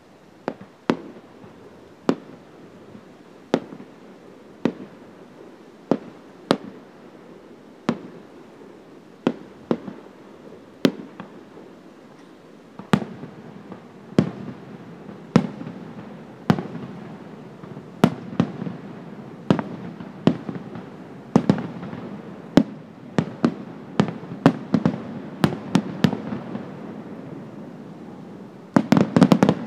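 Aerial firework shells bursting in a series of sharp bangs, about one a second at first, coming thicker in the second half over a rising rumble, with a rapid volley of bangs near the end.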